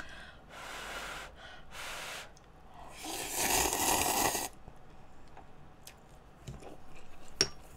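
Instant ramen noodles being slurped off chopsticks: two short slurps, then a longer, louder slurp about three seconds in. A single sharp click near the end.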